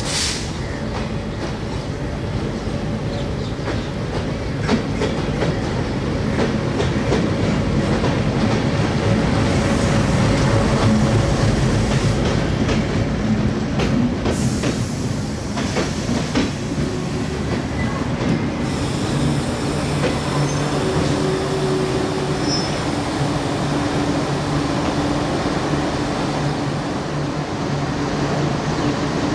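Diesel-hauled express passenger train running through the station, its wheels clattering over the rail joints with some wheel squeal. A steady low hum joins in during the later part.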